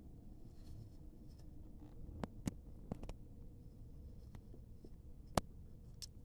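Guinea pigs eating from a plastic cup: faint scratchy chewing and rustling, with about half a dozen sharp plastic clicks and taps as they bump and bite at the cup. The loudest click comes a little past the middle.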